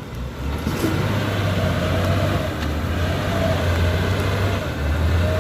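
Heavy diesel engine running steadily with a low hum and a faint whine that wavers up and down above it; it grows louder about a second in.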